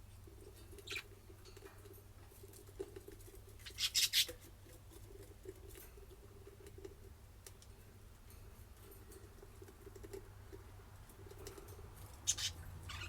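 Pet budgerigars and lovebirds moving about, making faint scratching and clicking sounds, with a short cluster of sharp scratchy sounds about four seconds in and another near the end, over a low steady hum.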